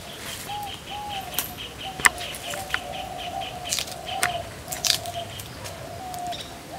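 Birds calling: a quick run of short high chirps, about five a second, over lower wavering notes. From about two seconds in, several sharp crisp crunches of a star fruit (carambola) being bitten and chewed.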